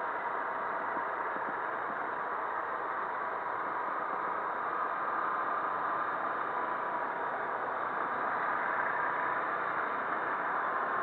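Hero Hunk motorcycle's small single-cylinder engine running steadily at low speed under way, mixed with road and wind noise. The sound is a steady, even drone with a faint held tone, growing slightly louder after the middle.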